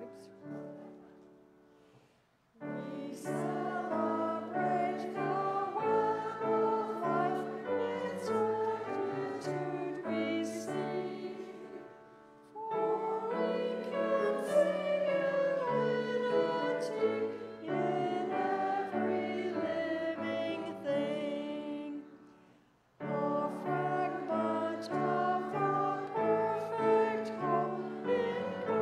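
Congregation singing a hymn together with piano accompaniment, in sections separated by short pauses: the singing starts about two and a half seconds in and breaks off briefly about twelve and twenty-two seconds in.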